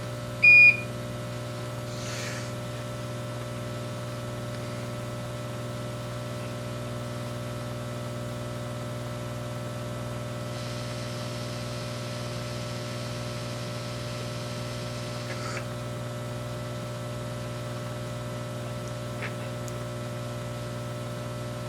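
A single short, high electronic beep from the microsoldering bench equipment about half a second in, over the steady low hum of that equipment. A soft hiss rises from about ten seconds in and stops about five seconds later.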